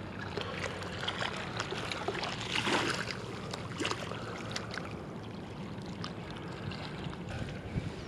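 Small waves lapping at a rocky shoreline with light wind on the microphone, a steady wash of noise with scattered faint clicks and rustles.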